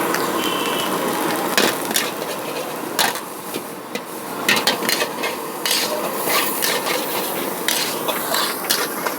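Irregular sharp knocks and clanks of metal cookware and utensils, over a steady background hubbub.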